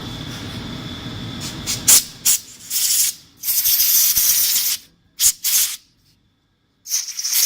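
Compressed-air blow gun hissing in a series of short blasts, the longest about a second and a half, blowing out the waterjet cutting head body to clean it. A steady machine rumble stops about two seconds in.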